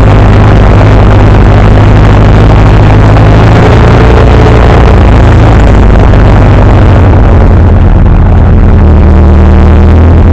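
Ursus C-355's three-cylinder diesel engine running steadily under load, heard very loud from inside the tractor cab, with a change in its note about seven seconds in.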